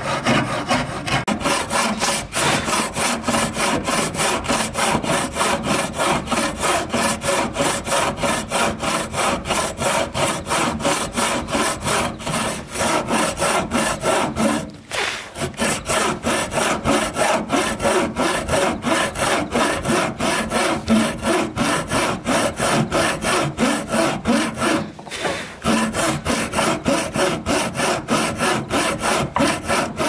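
Hand saw cutting through wood in steady back-and-forth strokes, about three a second, with brief pauses about halfway through and again near the end.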